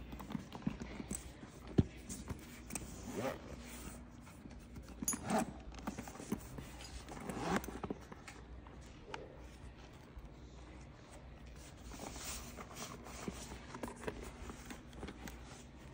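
Handling of a Louis Vuitton Avenue Slingbag: its Taurillon leather rustles and scrapes under the hands, with small clicks from the zipper and the metal strap hardware. The loudest sound is a sharp click just under two seconds in.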